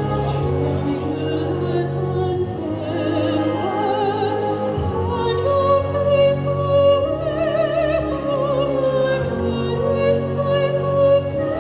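A woman singing opera in a trained classical voice with strong vibrato, holding long notes, over a steady instrumental backing.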